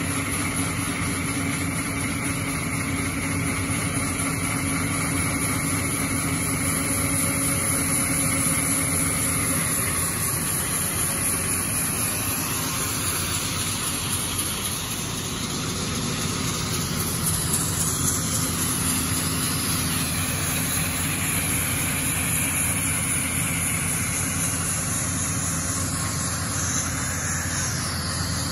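Crawler excavators' diesel engines running steadily, powering large hydraulic disc saw attachments that are cutting slots into a concrete and rock floor under a water spray.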